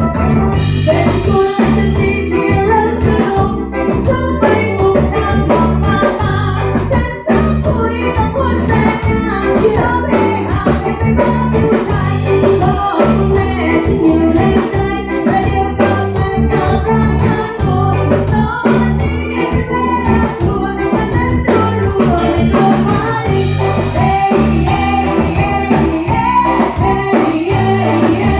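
Live band music with a steady beat, bass, drums and electric guitar.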